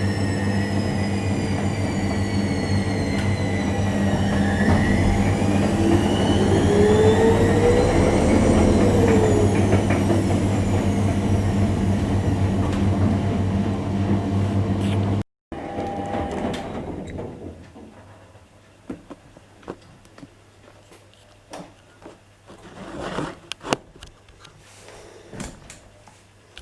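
Bauknecht WA 9350 washing machine running: a loud steady motor hum with whining tones that glide up and then back down. After a cut about halfway through, the machine is much quieter, with scattered clicks and knocks.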